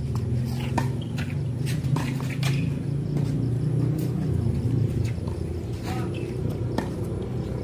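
Steady low hum with a few short, sharp knocks spread through it, several in the first half: a tennis ball bouncing and being struck on a hard court.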